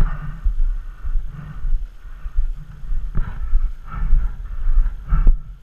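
Footsteps and gear handling noise from a player moving across a paintball field with a body-mounted camera: low thumps about every half second to a second, with two sharper knocks, one about three seconds in and one near the end.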